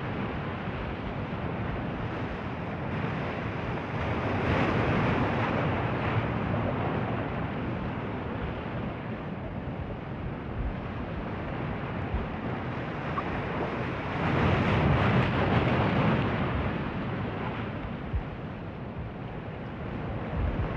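Ocean surf: a steady wash of waves with two swells of breaking surf, one about four seconds in and a louder one about fourteen seconds in, with some wind on the microphone.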